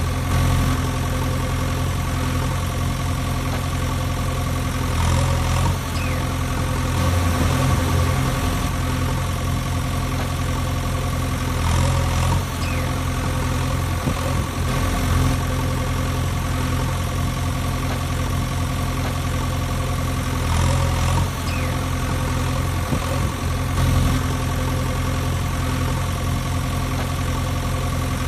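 Tractor engine idling steadily, a low even rumble that keeps the same pitch with only slight swells in level.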